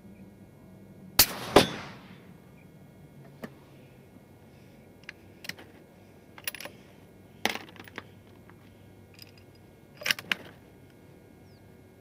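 A rifle shot about a second in, followed less than half a second later by a second sharp crack: the bullet striking the steel target. Scattered quieter metallic clicks follow.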